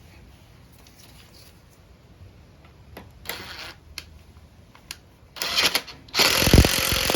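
Power driver forcing a 5/16 bolt through dirty, stiff threads on the mower's carburettor cover: two short bursts, then a loud continuous run with rapid pulsing, starting about a second before the end.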